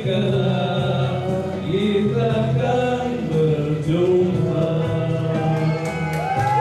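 A man and a woman singing a Malay song into handheld microphones through a PA system over backing music; a long held note starts near the end.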